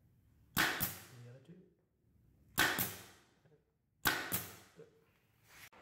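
Central Pneumatic 23-gauge air pin nailer firing three times, roughly one and a half to two seconds apart, pinning a glued mitered wood corner; each shot is a sharp crack that trails off quickly.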